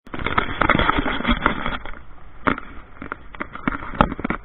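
Handling noise on the camera's microphone: a dense run of rustling, scraping and knocking for about two seconds, then scattered single knocks.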